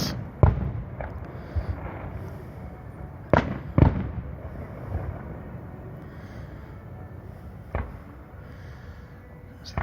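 Fireworks going off: a sharp bang about half a second in, a close pair of bangs around three and a half seconds, and another near the end, with smaller pops between over a steady background hiss.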